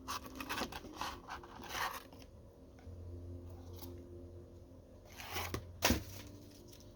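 Packaging being opened by hand: a quick run of rustling and scraping for about two seconds, then two short sharp tearing sounds a little before the end.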